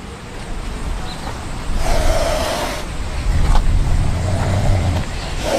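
Serval hissing in short noisy bursts, one about two seconds in and another at the end, with a low rumble in between.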